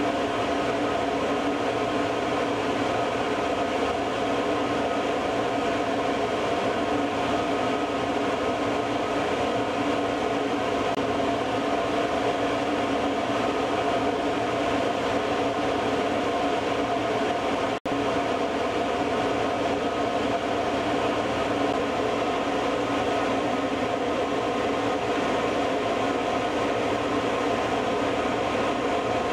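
Steady drone of a small ferry's engine, a constant hum with a few held tones, broken by a momentary dropout about eighteen seconds in.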